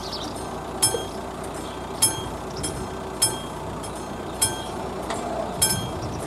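Classic level-crossing warning bell striking once about every 1.2 seconds, each stroke ringing out clearly, five strokes in all. This is the crossing's alarm that a train is approaching.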